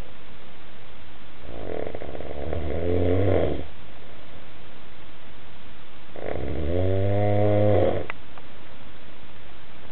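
Snoring in sleep: two long snores of about two seconds each, some four seconds apart, the second a little louder.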